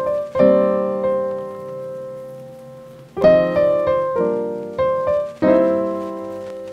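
Background piano music: chords struck and left to ring and fade, with a long held chord near the start and more chords about three seconds in.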